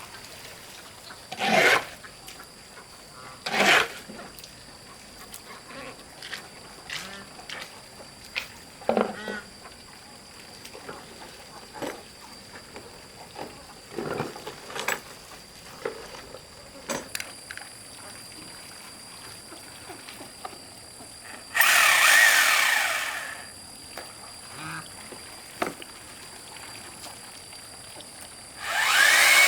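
Scattered knocks and taps, then a power drill running in a short spurt about two thirds of the way in and starting up again near the end. A faint steady high-pitched hum runs underneath.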